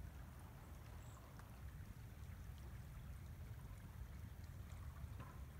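Faint, steady rush of floodwater from an overflowing river flowing as a current through woodland, with a low rumble underneath.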